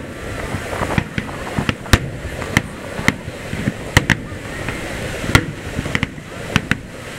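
Aerial firework shells bursting in quick, irregular succession: more than a dozen sharp bangs over a steady background noise.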